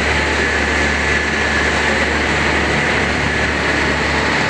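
A jangar pontoon ferry's engine running steadily under way, its propeller churning the water into a foaming wash.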